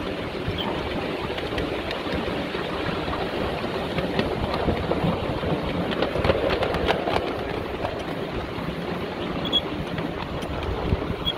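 Miniature railway train running along the track: a steady rumble of carriage wheels on the rails, with scattered clicks and wind on the microphone.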